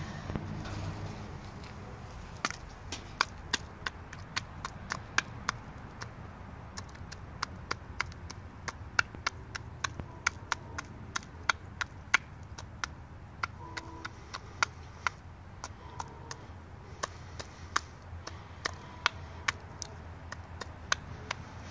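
A hen pecking feed from a hand-held red plastic cup: the beak strikes the cup in quick, irregular sharp taps, about two to three a second, starting a couple of seconds in.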